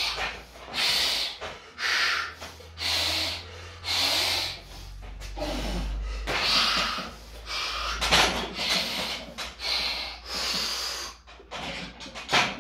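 A weightlifter taking sharp, forceful breaths, about one a second, as he braces under a heavy barbell before unracking it for a squat.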